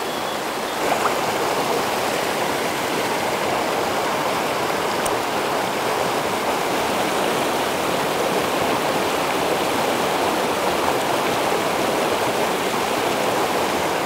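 Mountain stream water rushing steadily.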